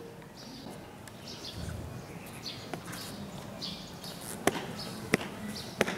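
Marching footsteps on a hard outdoor court: three sharp shoe stamps about two-thirds of a second apart in the second half, over faint outdoor background noise.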